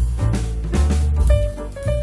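Background music: upbeat jazzy swing with drums, walking bass and held melody notes.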